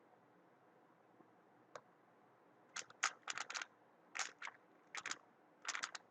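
Weilong WRM 2019 speedcube being turned fast in a solve: quiet at first, a single click a little under two seconds in, then quick clusters of clicking turns separated by short pauses.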